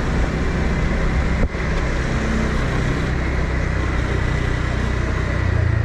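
Motor scooter running at riding speed: a steady low engine hum under even wind and road noise, with the engine getting louder near the end.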